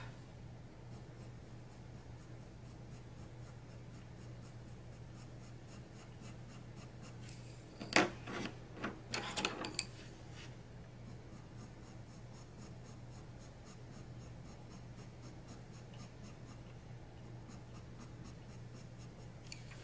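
Castle Art colored pencil scratching across toothy Neenah Bristol vellum paper in quick, faint shading strokes. A few louder clicks and scrapes come about eight to ten seconds in.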